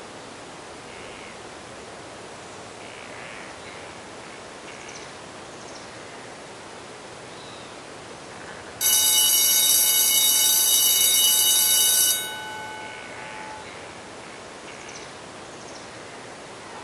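Electric school bell ringing for about three seconds, starting about nine seconds in and cutting off, with its tones fading after. Around it is a steady outdoor hiss with a few faint chirps.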